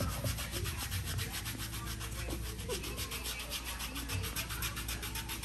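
Quick, even rasping strokes of scrubbing on skin during a pedicure, over a steady low hum.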